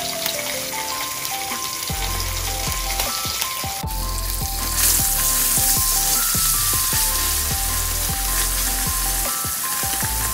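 Whole tilapia sizzling steadily as it fries in hot oil in a wok, with a wooden spatula working under the fish near the end. Background music with a melody and bass plays over the frying.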